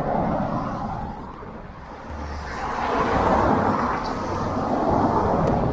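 Road traffic noise from a passing motor vehicle: a steady rush of engine and tyres that fades slightly, then swells again about halfway through as a vehicle draws close.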